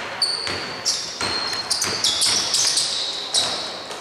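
A basketball being dribbled on an indoor court, bouncing about every half second, with sneakers squeaking sharply on the floor in short high squeals.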